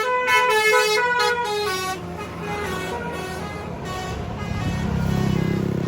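Bus telolet horn, a multi-tone air horn, playing a stepping tune that stops about two seconds in. A bus engine rumble then grows louder as the bus passes.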